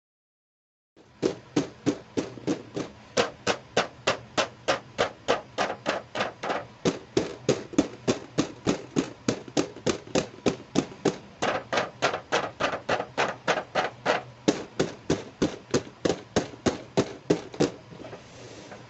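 Hands tapping or clicking on toy packaging in a fast, even rhythm of about three or four sharp taps a second, stopping shortly before the end.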